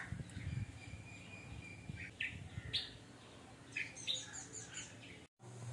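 Faint chirping of small birds over a low steady hum: a few short chirps about two seconds in, then a quick run of falling chirps around four seconds.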